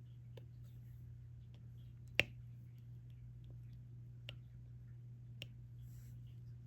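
Diamond-painting drill pen placing resin drills on the adhesive canvas: a few light, sharp clicks spread apart, the loudest about two seconds in, over a steady low hum.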